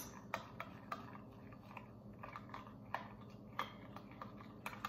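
A metal spoon stirring liquid in a glass measuring cup: faint, irregularly spaced clicks and scrapes of the spoon against the glass.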